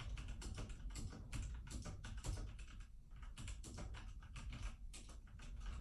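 Typing on a Royal Kludge 60% mechanical keyboard: fast, irregular clacking keystrokes, several a second, with short pauses about two and three seconds in. The owner calls it very clackety clack.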